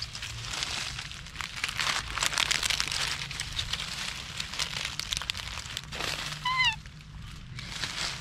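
Dry fallen leaves crackling and rustling as a baby macaque handles and picks through them while foraging. About six and a half seconds in, the monkey gives one short high squeak that rises and falls.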